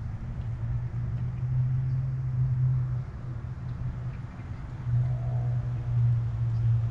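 Motor oil pouring from a plastic jug through a funnel into an engine's oil filler. The jug makes a low, hollow, steady glugging that swells about a second in and again near the end.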